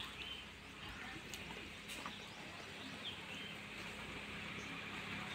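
Faint outdoor background noise with a low steady hum, broken by a few short, high bird chirps and the odd faint click.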